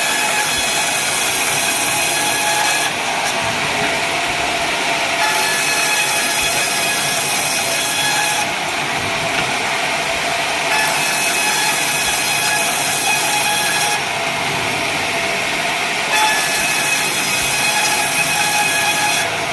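Sawmill saw running steadily and cutting wadang timber into battens: four stretches of louder, hissing cutting, each about three seconds long, with quieter gaps of about two seconds between them while the blade runs free.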